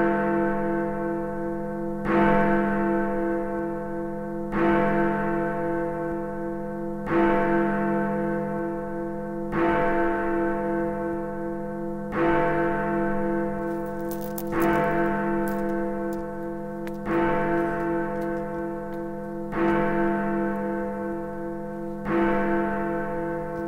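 A clock bell tolling midnight: ten deep, ringing strokes about two and a half seconds apart, each one still ringing when the next is struck.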